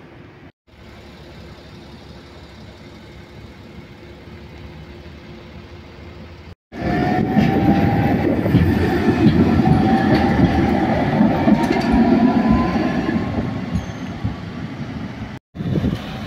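Articulated electric tram passing close by: rumble of wheels on rail with a motor whine that rises in pitch as it speeds up. Before it there is quieter street sound with a steady hum, and after it traffic noise.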